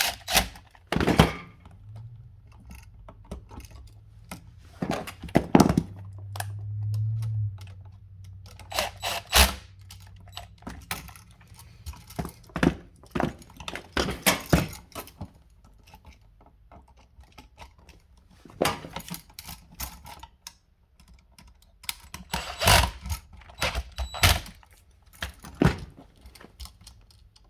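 Irregular clicks, taps and knocks of a screwdriver and small metal parts as the terminal screws on an electrical receptacle are loosened and the device is handled.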